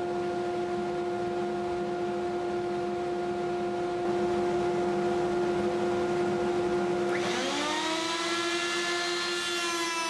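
Table-mounted router spinning a Freud drawer-pull bit at speed with no wood in the cut, a steady whine. About seven seconds in, a second motor starts and spins up, rising in pitch and settling alongside it.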